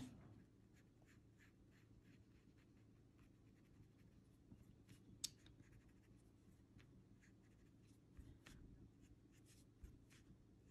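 Faint, scattered short scratches of a coloured pencil on paper, over a low steady hum.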